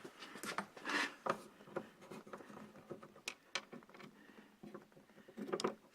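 Light handling noises: scattered small clicks, taps and rustles of hands working on parts.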